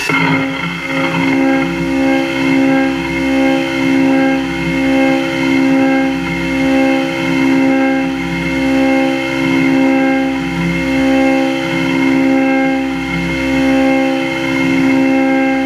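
CNC end mill cutting Hardox 450 wear-resistant steel on a dynamic (trochoidal) toolpath: a steady, pitched cutting whine that swells and eases in an even rhythm a little more than once a second as the cutter sweeps into and out of the material.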